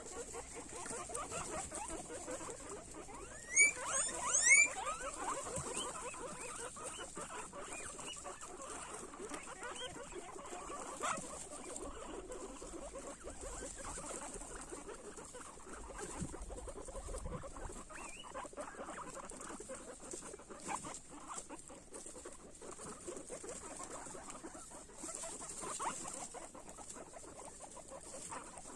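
Guinea pigs chewing and crunching food, a dense run of fast little crunches. About four seconds in, a few short high squeaks rising in pitch stand out as the loudest sounds.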